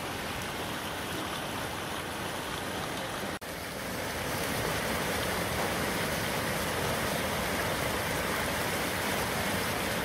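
Rushing river water, a steady wash of noise that cuts out for a moment about three and a half seconds in and comes back a little louder.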